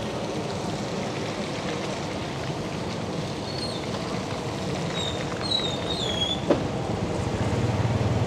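Street traffic noise, steady, with a few short high squeaks a little past the middle and a sharp click about six and a half seconds in; a low rumble builds near the end.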